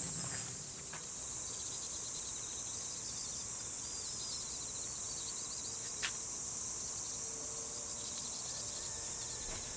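Insects chirring in a steady high-pitched drone, with quick faint chirps in the first few seconds and a single click about six seconds in.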